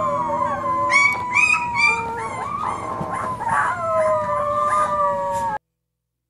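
Several boxer puppies howling at once: long overlapping howls with short high yips among them. The sound cuts off suddenly about five and a half seconds in.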